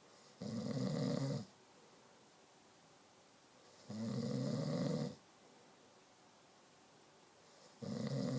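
Snoring: three long snores, each about a second, coming about every four seconds, the last starting near the end.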